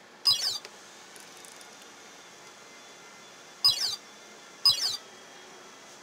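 Tajima embroidery machine control panel chirping as its keys are pressed: three short falling chirps, one just after the start, one about three and a half seconds in and another a second later.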